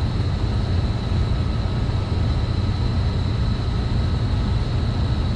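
Steady low drone of running gas-boiler machinery, with a faint constant high whine over it. The restarted Lochinvar Copper-Fin II boiler is in its ignition sequence, with its hot surface igniter drawing current.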